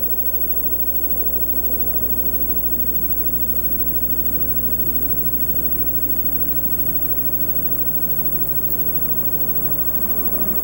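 Steady low engine drone with a few held tones that grow stronger from about four seconds in. It sits over the constant hiss and low hum of an old VHS tape transfer.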